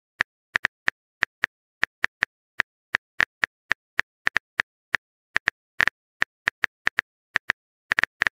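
Phone keyboard typing clicks: short, sharp taps at an uneven pace of about four a second, with a quick flurry near the end.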